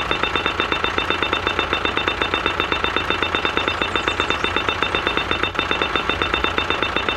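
Small electric motor and plastic gears of a battery-powered toy tractor running steadily: a high whine with a rapid, even clicking of about ten ticks a second.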